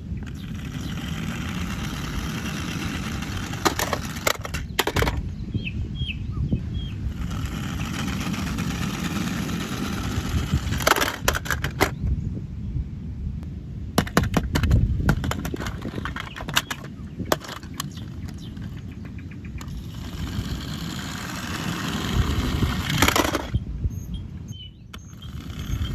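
Handling noise: continuous low rumbling and scraping, broken by clusters of sharp clicks and cracks.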